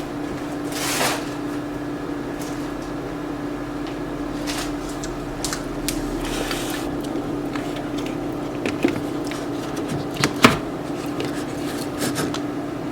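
Light clicks, knocks and a soft scrape of kitchen utensils and containers being handled, over a steady low hum.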